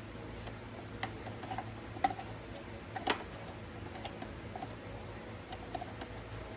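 Scattered light clicks and taps of small hard parts or tools being handled, the two strongest about two and three seconds in, over a steady low hum.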